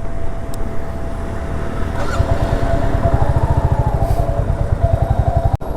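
Royal Enfield Hunter 350's single-cylinder engine running, its exhaust settling into an even, rapid pulsing about two seconds in. A faint wavering tone sits over it in the middle, and the sound cuts out for an instant near the end.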